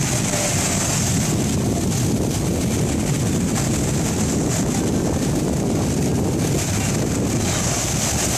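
Steady wind rumbling on the microphone, with small waves breaking and washing on the beach.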